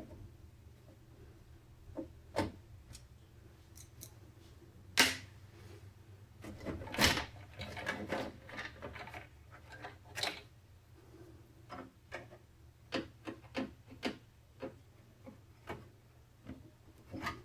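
Irregular small clicks, taps and knocks of computer parts and hardware being handled and fitted during a PC build, with a busy stretch of rattling clicks in the middle and two louder knocks about 5 and 7 seconds in.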